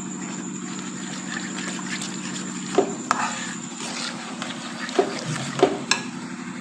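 Metal spoon stirring a thin white sauce in a steel pot: wet swishing and scraping, with four sharp clinks of the spoon against the pot in the second half, over a steady low hum.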